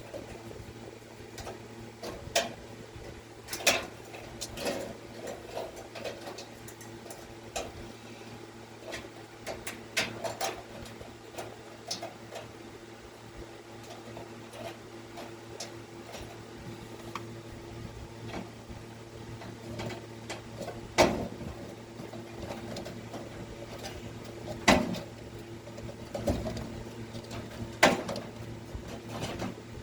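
Scattered clicks, taps and knocks of hand tools and small parts being handled on a dryer during a heating-element and thermostat repair, over a steady low hum; the sharpest knocks come about two-thirds of the way through and near the end.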